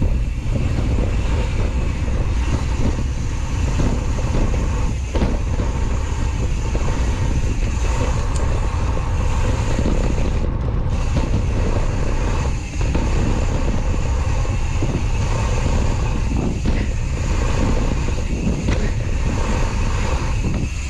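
Wind rumbling steadily on the microphone of a camera riding along on a gravel bike, over the hiss of tyres rolling on a dirt trail, with a few jolts from bumps.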